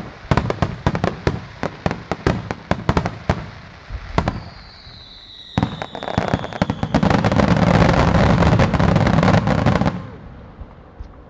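Starmine fireworks barrage: a rapid string of shell bursts for about four seconds, then a falling whistle, then a dense unbroken wall of bursts from about six to ten seconds that cuts off suddenly.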